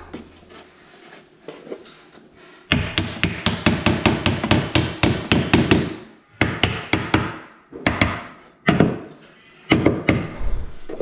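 Hammer tapping nails into laminate on a wooden stair. Faint ticks come first; a few seconds in, a fast run of sharp strikes begins, several a second, then it breaks into short bursts of taps with pauses between.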